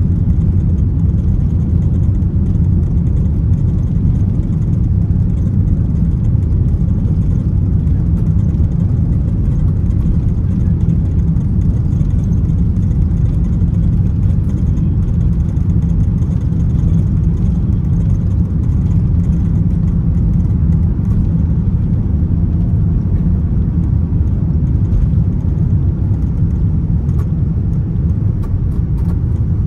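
Cabin noise in a Boeing 787-9 during the takeoff roll and liftoff: a steady, deep rumble of the engines at takeoff thrust and the wheels on the runway.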